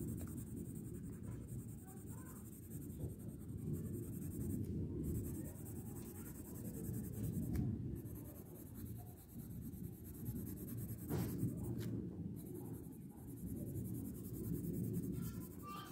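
Colouring on paper: a drawing tool scratching back and forth in uneven strokes as a plant's stem is filled in with brown.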